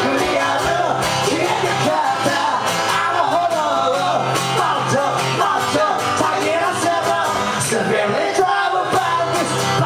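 Live acoustic duo performance: a strummed acoustic guitar with two voices singing into microphones, played loud and steady through a small club's sound system.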